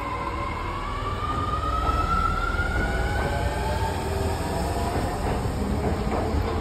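Osaka Metro 30000 series subway train pulling out of the station: the whine of its electric traction motors rises steadily in pitch as it gathers speed, over a low rumble of wheels on rail.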